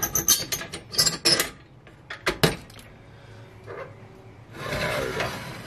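Metal clinks and rattles from a tubular oil lantern being handled as it is lit: a quick run of light clicks, a sharp knock about two and a half seconds in, then a short scraping rub of the lantern's mechanism near the end. The owner says the lantern is stiff and needs oiling.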